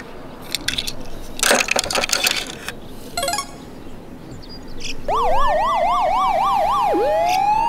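Small clicks and a short rattle of a die-cast toy police car being set into the plastic shelf of a toy car-carrier truck. About five seconds in, a loud electronic police siren starts with a fast up-and-down yelp about four times a second, then turns near the end into a slow rising and falling wail.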